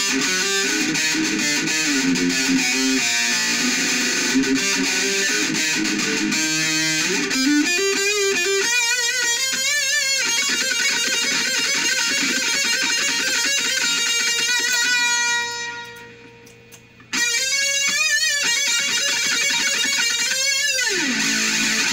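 Jackson King V (KVXMG) electric guitar played through a Black Truck distortion pedal into an Orange Micro Dark hybrid tube amp and PPC108 cab: distorted low riffing, then held lead notes with wide vibrato. About two-thirds through, a note fades and the sound briefly drops out; a new vibrato note then falls steeply in pitch just before the low riff comes back.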